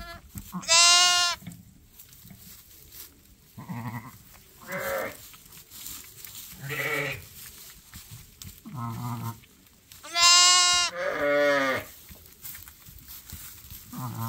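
Newborn lambs and their ewe calling: three loud, high-pitched bleats, one near the start and two back to back about ten seconds in, with about five quieter, deeper calls between them, typical of a ewe murmuring to her lambs as they try to nurse.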